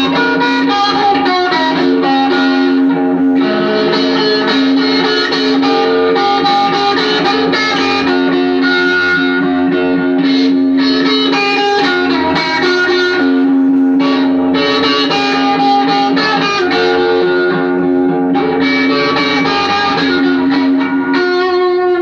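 Electric guitar played through effects in an instrumental piece, long held notes ringing over one another with short breaks every few seconds.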